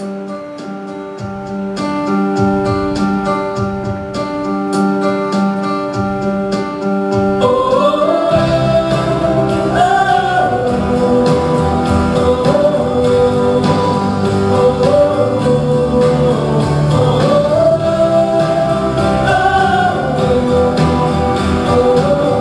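Slow instrumental accompaniment of sustained chords, then a woman's solo singing voice enters about a third of the way through and carries a slow ballad melody over it.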